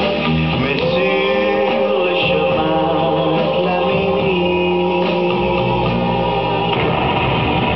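Music: a song with sung vocals holding long, gliding notes over instrumental backing.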